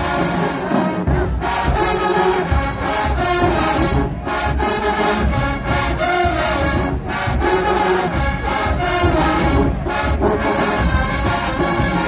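HBCU show-style marching band playing loud, with a brass section over a heavy drum beat and a few brief stops in the music.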